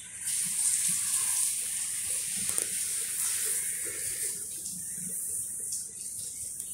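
A steady, high hiss of rushing noise, like running water, that swells just after the start and then holds even.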